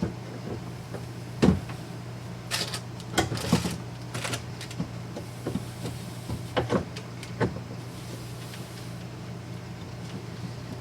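Scattered clicks and knocks of metal drawer slides and their mounting hardware being handled and fitted into the pantry cabinet, over a steady low hum.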